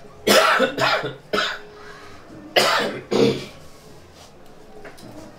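A man coughing: three coughs in quick succession, then two more after a short pause.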